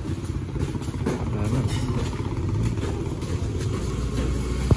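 Motorcycle engine running steadily at a low, even rumble.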